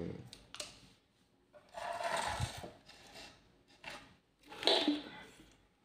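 Output leads of a homemade 6-FET electrofishing inverter are touched together to short it, giving short spells of rasping crackle with a few clicks: once near the start, a longer spell about two seconds in, and a short louder one near the end.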